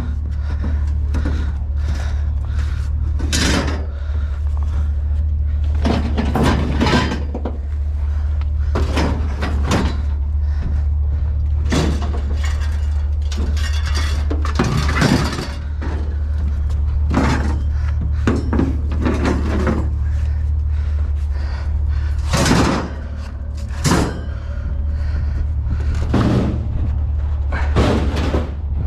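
Scrap being moved and stacked: a long series of irregular clanks, knocks and bangs, about one or two every second or so, over a steady low hum.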